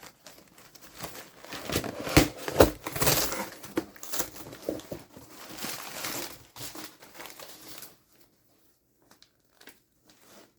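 Shipping packaging being unwrapped by hand: crinkling and rustling with a few sharp knocks, stopping about eight seconds in, then only a few faint clicks.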